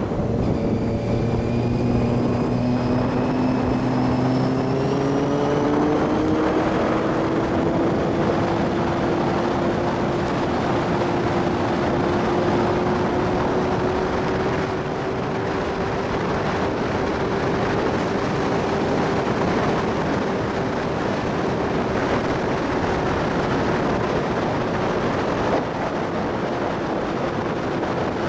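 Motorcycle engine running under way, with a steady rush of wind. Its note climbs over the first several seconds as it speeds up, then holds even at a cruise.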